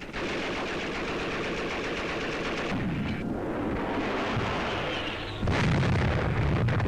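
Shipboard anti-aircraft gunfire during an air attack: rapid shots running together into a continuous clatter, growing louder and deeper about five and a half seconds in.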